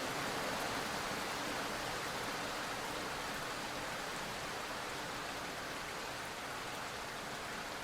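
Steady rain, an even hiss with no other sound, fading slowly.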